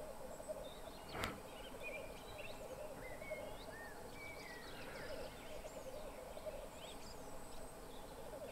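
Displaying male black grouse bubbling in a continuous, rapidly pulsing, low cooing warble at the lek. A short sharp sound about a second in.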